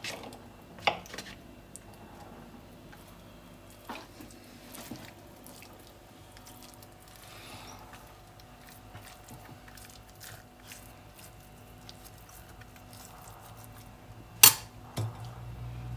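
Soft handling of a raw chicken on a ceramic plate, with a few sharp clicks and knocks of the plate and seasoning bottles; the loudest knock comes near the end.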